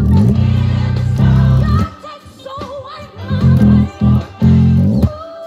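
Electric bass guitar played fingerstyle over a gospel mass choir recording: a long low note held for nearly two seconds, then a run of shorter, punchier notes, with the choir singing above.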